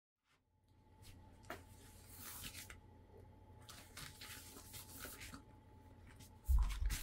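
Rubber kitchen gloves being pulled on over the hands: several rubbing, rustling strokes, over a faint steady hum, with a low thump near the end.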